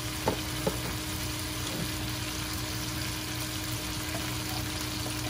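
Onions, tomato and ginger and cumin pastes sizzling steadily in oil in a frying pan, with two short clicks near the start.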